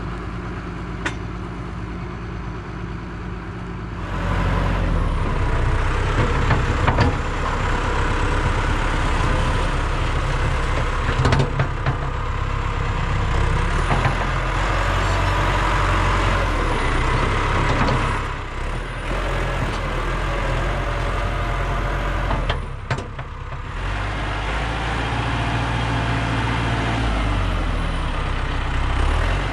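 Heavy diesel engine of the machine pulling a mole plough through the ground to lay water pipe. It runs steadily, then gets louder about four seconds in as it takes the load, easing off briefly twice later on.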